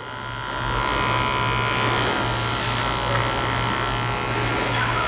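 Electric hair clipper with a half guard buzzing steadily as it cuts short hair in a fade, the taper lever on its low setting. It grows louder over the first second as the blade meets the hair.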